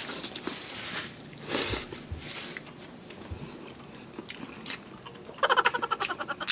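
A person eating spicy instant noodles with chopped chillies, chewing close to the microphone with a few short noisy bursts early on. Near the end comes a brief burst of loud, rapidly pulsing voiced sound, a vocal reaction to the heat.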